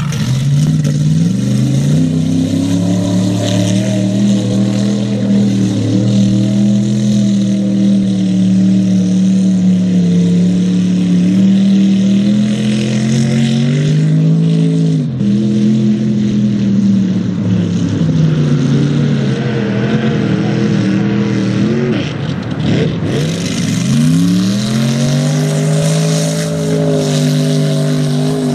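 Chevy mega truck's engine revving hard under load as it churns through a mud pit, its pitch climbing and dropping over and over.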